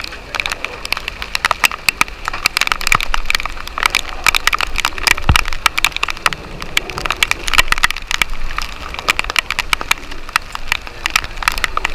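Storm rain pelting a sailboat and the microphone: a loud, dense, irregular patter of drops.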